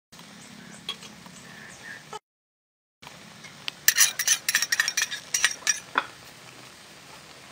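A quick run of sharp metal clinks and taps from cooking utensils against the wok and seasoning containers, over a faint steady background. The sound cuts out completely for a moment about two seconds in.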